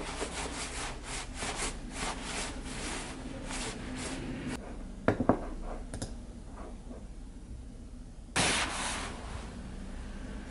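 Hands rubbing together briskly to warm up, with the nylon sleeves of a padded jacket rustling. The rubbing is a quick run of soft strokes that stops after about four seconds. A few clicks follow a little after five seconds, and a louder rustle of about a second comes after eight seconds.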